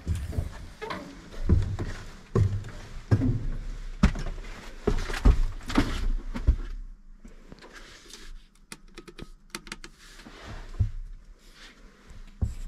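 Knocks, thumps and door thunks of someone climbing into a Fendt tractor cab, followed by a quieter stretch of small clicks from inside the cab, with the engine still off.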